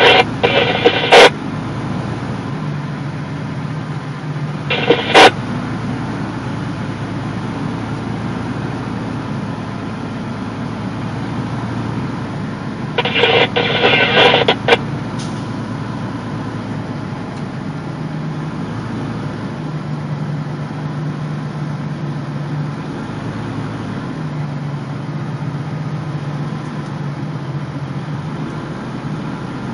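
Steady rolling and wind noise of a heavy-haul trailer moving slowly with its load, a low hum coming and going. A few short two-way radio crackles break in near the start, about five seconds in, and about halfway through.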